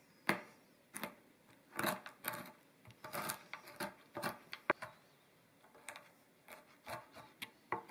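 A black-coated Cuisinart kitchen knife chopping shelled pistachios on a white cutting board: an irregular run of sharp chops as the blade rocks down through the nuts onto the board, a little softer near the end.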